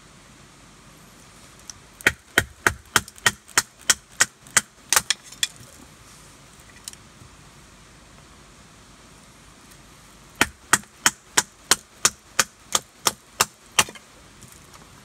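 Large bush knife chopping down into a stick of firewood held upright, splitting it into kindling: two runs of about a dozen sharp chops, roughly three a second, with a pause of about five seconds between them.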